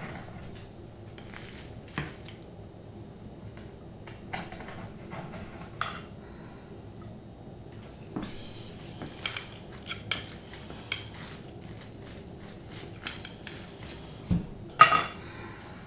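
Dishes and metal utensils clinking and knocking on a kitchen counter in scattered short clicks, with a louder clatter of two knocks near the end.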